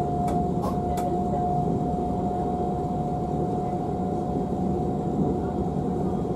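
Interior running noise of a DB Class 425 electric multiple unit at steady speed: a rumble of wheels on track with a steady whine held at one pitch above it. A few faint clicks come in the first second.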